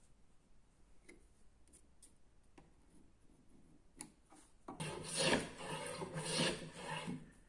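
Hand plane shaving along an oak table leg in a few long rasping strokes. The strokes start about two-thirds of the way in, taking the leg down to a taper.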